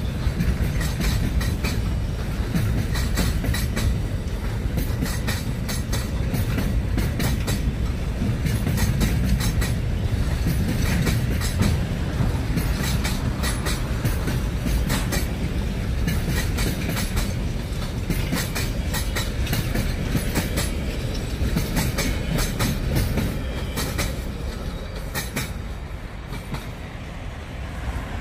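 Container freight train's wagons rolling past close by: a steady low rumble of steel wheels on rail with repeated sharp clacks as the wheelsets cross the rail joints, getting a little quieter near the end.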